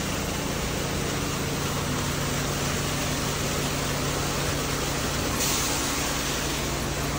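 Water gushing from a hose into an underground tank, over the steady hum of a water tanker truck's engine running. The rush of water turns hissier about five seconds in.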